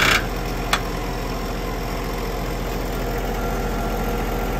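Subcompact tractor engine idling steadily, with a short clatter right at the start and a single sharp click under a second in.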